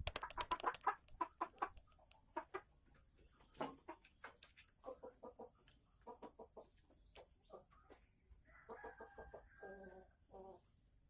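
Red junglefowl hen clucking: a quick run of short clucks thins out into spaced single clucks, then a short pitched cackle near the end. This is the 'ngekek' cackling a hen gives when she is about to lay an egg.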